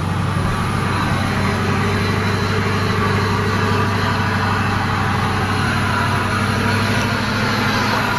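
Pickup truck engine and road noise heard from inside the cab while driving, a steady low drone.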